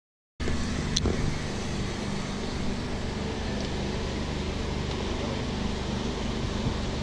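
Boat engine idling steadily, with a single sharp click about a second in.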